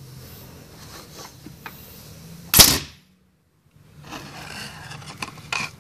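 Homemade compressed-air dart gun firing once: a sharp blast of released air about two and a half seconds in, after which the sound drops out completely for about a second. Faint clicks and a shorter burst of noise follow near the end.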